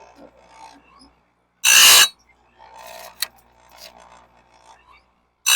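Electric chainsaw-chain sharpener, rigged to sharpen a bandsaw mill blade, grinding blade teeth: two short, harsh grinding bursts about four seconds apart, with faint clicks between them as the blade is moved on to the next tooth by hand.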